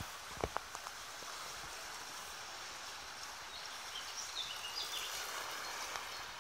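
Shallow river water running steadily around a kayak, with a few sharp knocks in the first second and some short high chirps in the second half.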